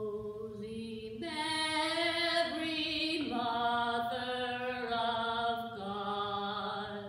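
A voice singing slow, long held notes without a beat, stepping up to a higher note about a second in, dropping again around three seconds in, and fading near the end.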